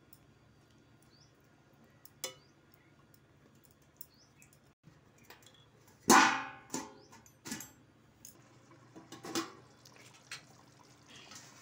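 A steel plate is set over a pan of simmering fish curry as a lid, giving one loud metallic clatter about halfway through, then a few lighter knocks as it is handled. Before that there are only a few faint clicks over a low background hum.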